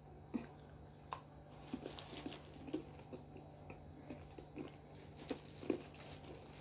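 Faint crunching and chewing of honey-coated groundnuts, with light crinkles and scattered small clicks.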